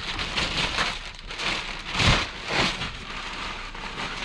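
Masking paper and tape being ripped off a freshly painted truck cab window and crumpled: a run of irregular paper crackling and rustling, loudest about two seconds in.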